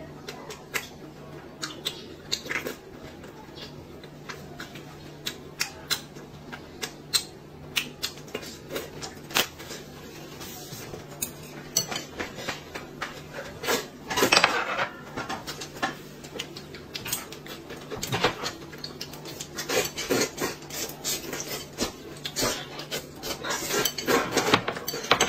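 Eating sounds: chopsticks clicking against a glass bowl and dishes in many short sharp taps, with noodles being slurped in longer noisy stretches midway and near the end.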